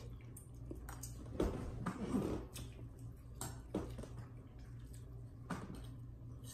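Eating sounds: a few scattered small clinks and knocks of a spoon against a bowl and dishes, over a low steady hum.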